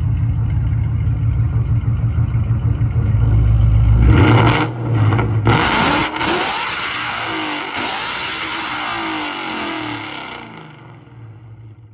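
Ford Mustang GT's Gen 1 Coyote 5.0 V8, with full bolt-ons, idling, then revved hard about four seconds in. It stays loud for several seconds as the revs come back down, and it dies away near the end.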